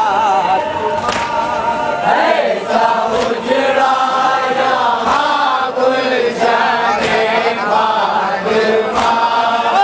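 Men's voices chanting a nauha, a Shia mourning lament, in long wavering melodic lines held without a break.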